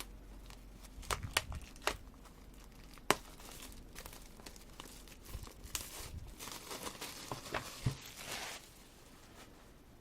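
Crinkling and rustling of an album and its packaging being handled, with scattered light taps and clicks and a longer run of rustling about six to eight and a half seconds in.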